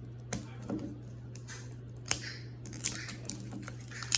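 Scattered sharp clicks and a brief crinkle of plastic toy packaging being handled and opened, with a cluster of clicks about three seconds in, over a steady low hum.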